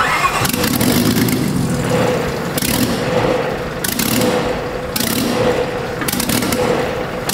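Honda J35 V6 on a propeller test stand, starting right away and running roughly, swinging its propeller. The note surges rhythmically about every second and a quarter. It runs this way because the fuel had been stripped from its tune and is still being added back.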